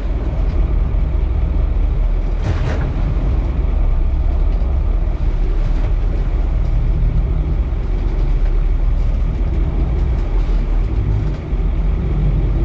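Sportfishing boat's engine running steadily at low speed, a continuous low rumble, with a brief knock about two and a half seconds in.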